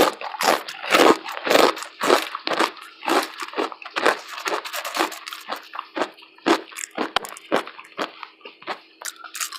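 Close-up crunching of pepperoncini potato chips being chewed, a steady run of sharp crunches about two a second.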